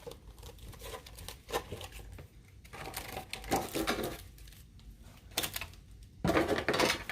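Handling noise of Pokémon card tins and packaging being moved about on a table: scattered light clicks, knocks and rustles, with a louder clatter near the end.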